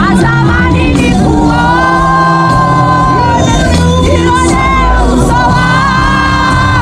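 Music with singing: a voice holding long, bending notes over a band.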